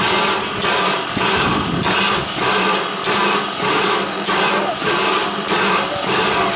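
1910 Baldwin steam locomotive working, its exhaust chuffing in a steady rhythm of about two beats a second.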